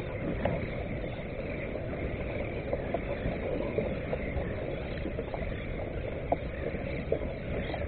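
Water lapping and gurgling against a plastic kayak hull on calm sea, a steady wash with scattered small ticks and drips.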